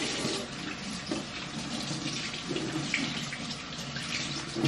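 Water running steadily from a tap into a sink while hands are washed under it.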